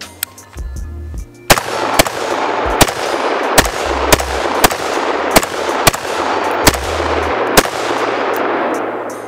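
AR-15 pistol with a 10.5-inch barrel firing about nine semi-automatic shots, starting about a second and a half in and spaced roughly half a second to a second apart.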